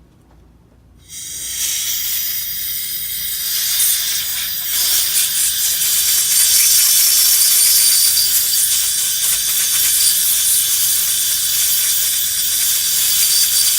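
Jet of compressed air blowing on a freshly steam-cleaned porcelain crown to dry it: a loud, steady hiss that starts about a second in, grows a little stronger midway and cuts off sharply at the end.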